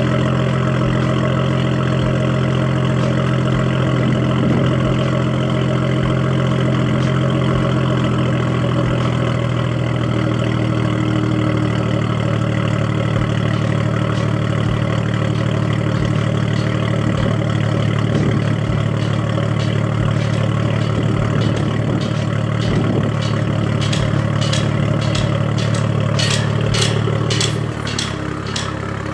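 BMW N55 turbocharged 3.0-litre inline-six idling steadily through a muffler- and resonator-delete exhaust with a catted downpipe, a deep idle that settles a little lower about eight seconds in. A run of quick sharp clicks sounds near the end.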